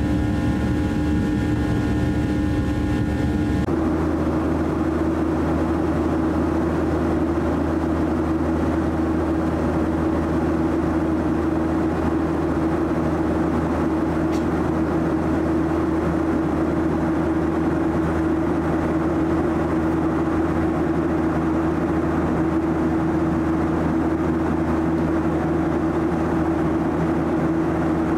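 Cabin noise inside a Boeing 737-800 in flight: the steady drone of its CFM56 turbofan engines and airflow, with a constant hum. A little under four seconds in, a cluster of higher steady tones stops abruptly and the drone continues alone.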